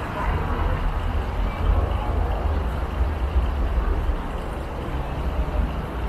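City street traffic: a steady low rumble of passing vehicles, heaviest through the first few seconds and easing near the end.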